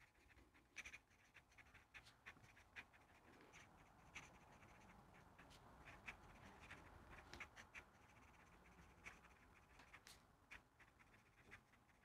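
Faint scratching and small scattered ticks of a fountain pen nib moving over paper, with a short run of them in the middle.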